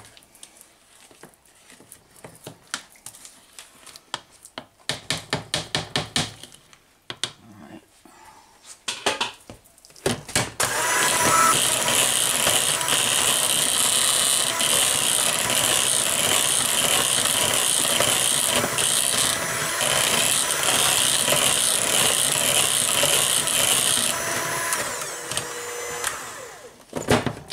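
A spatula stirring and scraping against a mixing bowl, then about ten seconds in an electric hand mixer starts and runs steadily, its twin beaters churning thick creamed butter, sugar, egg and molasses cake batter; it shuts off just before the end.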